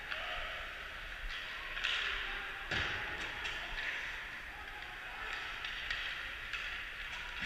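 Ice hockey play echoing in an indoor rink: skates scraping the ice, with scattered clicks of sticks and puck. There is one louder thud about three seconds in.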